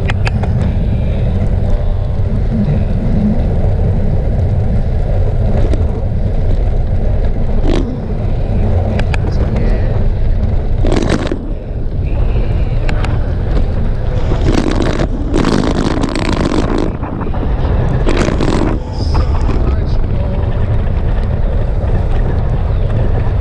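Steady low rumble of a vehicle ride with wind on the microphone, broken by several loud hissing bursts between about 11 and 19 seconds in.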